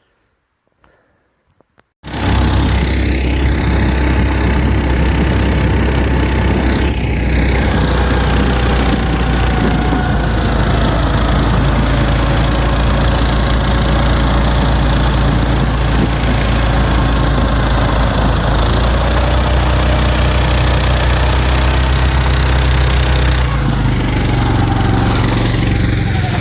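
Vehicle engine running at a steady speed, coming in abruptly about two seconds in, its low tone shifting a few seconds before the end.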